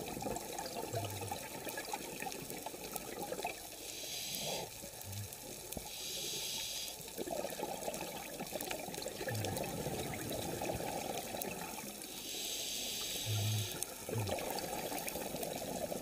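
Scuba diver breathing through a regulator, heard underwater: short hisses on each inhale, then longer gurgling rushes of exhaled bubbles, a few breaths in all.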